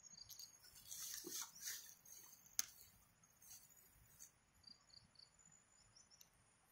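Near silence: faint rustling of leaves and grass being brushed through, with one sharp click about two and a half seconds in. A few faint, short, high insect chirps come through the quiet.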